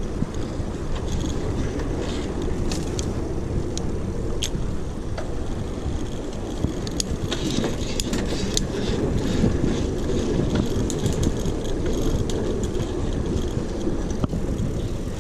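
Mountain bike riding along a rough trail: a steady low rumble of wind on the microphone and tyres rolling, with scattered sharp ticks and rattles.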